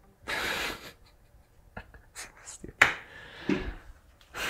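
A man's breathing with rustles, clicks and a sharp knock as he gets up from his chair, picked up close on a clip-on lapel microphone; a breathy exhale at the start and again near the end.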